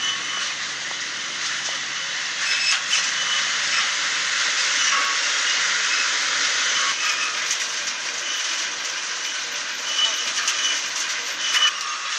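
Wool-processing machine running, with a steady loud rush of air and tumbling fibres and a few light clatters.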